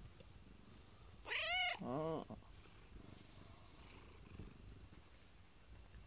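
A domestic cat gives one short two-part meow about a second in, a high note dropping into a lower, falling one, with soft purring underneath while it is being stroked.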